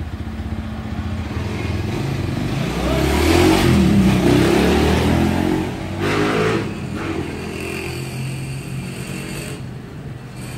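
A motor vehicle engine running close by, growing louder about three seconds in and fading after about seven seconds, as when it passes.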